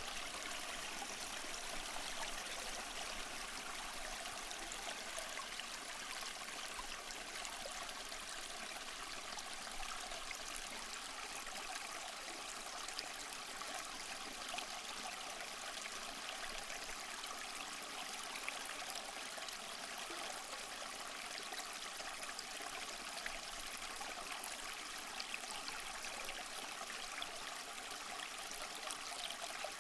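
Small waterfall splashing and trickling steadily over mossy rocks, a continuous even rush of water.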